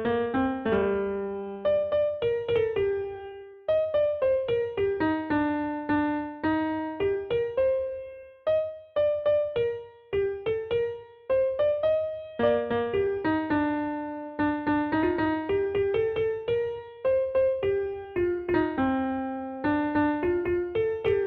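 Background music: a melody of electric piano notes, each struck and fading.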